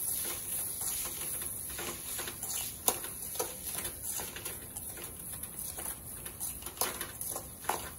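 Perforated steel spatula scraping and knocking against an aluminium kadai as a thick brinjal curry is stirred, with sharp clinks here and there, the louder ones about three seconds in and near the end.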